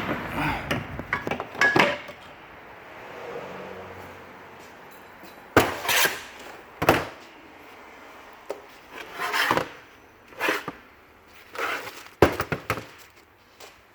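Hand tools and metal parts knocking and clanking, with a few short scraping noises, while an engine mount is unbolted and worked out of a car's engine bay.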